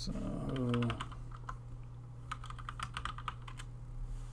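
Typing on a computer keyboard: two runs of keystrokes, a short one in the first second and a quicker run of about a dozen keys between two and three and a half seconds in, entering a user name and password.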